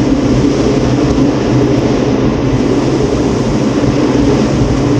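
St. Louis Gateway Arch tram capsule running steadily on its climb, heard from inside the small pod: a loud, even mechanical run with a low hum underneath.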